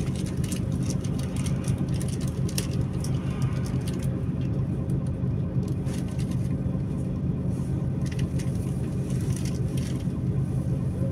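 Mercedes-Benz Conecto O345G articulated city bus's diesel engine idling steadily, an even low hum that does not change, with a few faint light ticks over it.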